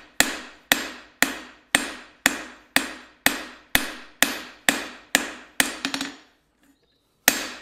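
Hand hammer striking a red-hot steel bar on an anvil, forging a set-down flat: a steady rhythm of about two blows a second, each ringing briefly. The blows stop about six seconds in, and one more lands near the end.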